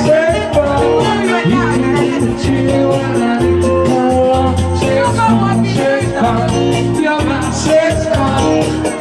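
Loud dance music played at a party, with a singing voice over a steady beat.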